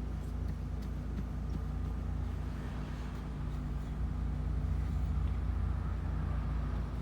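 Cabin noise inside a moving Blue Bird Vision school bus with a propane engine: a steady low engine and road rumble with faint rattles, growing a little louder about halfway through.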